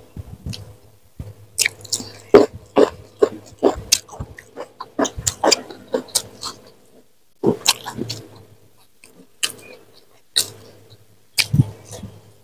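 A person chewing a mouthful of food close to the microphone: wet mouth sounds and sharp crunches several times a second, with a short lull about seven seconds in.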